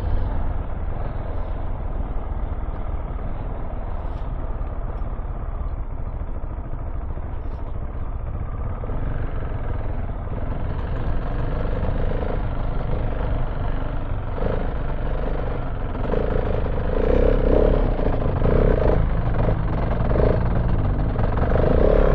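Single-cylinder KTM 690 Enduro R motorcycle engine running while riding off-road, with road and wind noise. It grows louder in the second half, with uneven surges as the throttle is worked.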